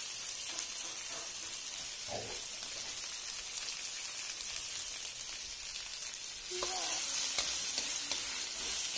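Sliced okra and garlic sizzling in hot oil in a wok, stirred with a spatula. The sizzle grows louder about two-thirds of the way through.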